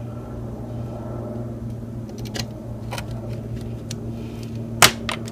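Small magnetic screwdriver driving a screw into the side of a metal optical-bay hard drive caddy: a few light clicks of metal on metal, with one sharper click near the end, over a steady low hum.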